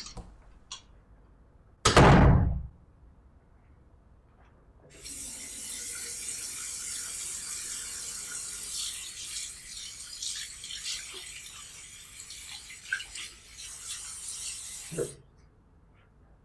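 A tap running into a bathroom sink for about ten seconds while hands are rinsed under it, cutting off suddenly near the end. Before the water starts, about two seconds in, there is one loud, short hit.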